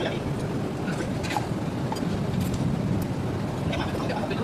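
Steady low drone of running machinery, with faint voices and a few light clicks over it.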